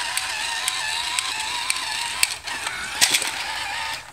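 VTech Shake and Sounds Learning Pup toy's small electric motor and plastic gears whirring as the toy dog drives and turns on its wheels, a slightly wavering whine with scattered clicks. It stops suddenly about four seconds in.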